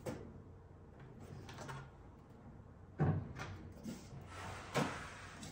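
Hands handling a water chiller's sheet-metal case: a few sudden knocks and bumps against the metal, the loudest about three seconds in and again near the end, with soft rustling between.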